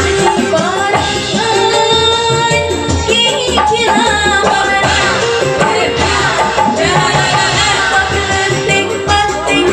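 A woman singing a Sundanese song into a microphone over amplified live band music with a steady drum beat.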